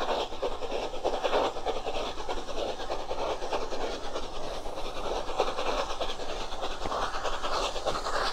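The Flying Scotsman, an LNER A3 steam locomotive, and its train of coaches passing at a distance: a steady, fast rattling run of exhaust and wheel noise.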